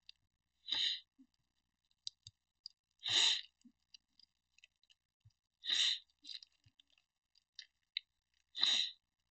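Four short breathing sounds, breaths or sniffs close to a headset microphone, about every two and a half seconds, with faint clicks of trading cards being handled between them.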